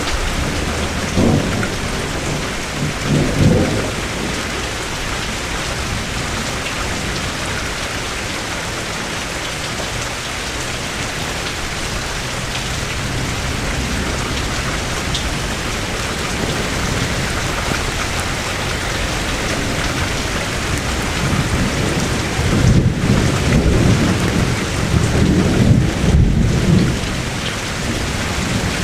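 Steady rain with thunder: short low rumbles in the first few seconds, and a longer, louder roll of thunder near the end.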